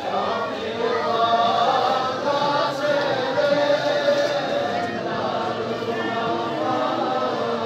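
A group of voices chanting a Balti-language noha, a Shia mourning lament for Ali Akbar, together and without instruments.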